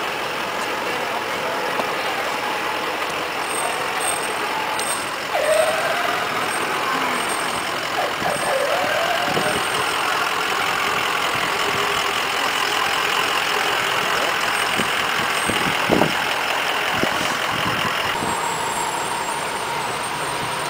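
Parade vehicles, a box ambulance then an old pickup with fire trucks behind, driving slowly past close by with their engines running, over scattered crowd voices. A single sharp knock sounds near the three-quarter mark.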